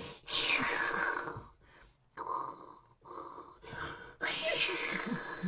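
A man imitating thunder and lightning with his voice: hissing, breathy bursts of noise with falling sweeps. There is one long burst, then a few short ones, then another long burst about four seconds in that slowly dies away.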